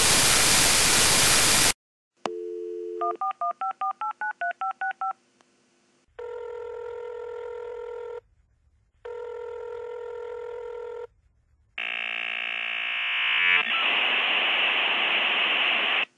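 A burst of loud static hiss, then a dial-up modem connecting. First a dial tone, then about a dozen touch-tone beeps dialing a number and two rings. From about twelve seconds in comes the screeching handshake, which settles into a steady hiss.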